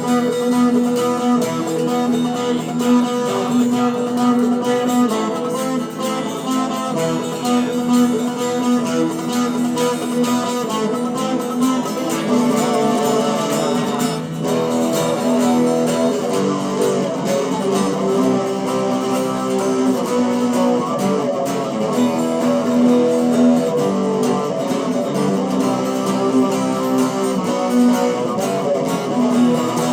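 Yamaha ERG121C electric guitar, played through Behringer effect pedals, playing a rock song's chords and melody with sustained notes.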